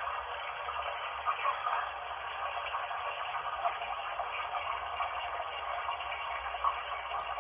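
Running bath water played back from a recording and picked up on a phone: a steady, thin rushing hiss, cut off in the treble.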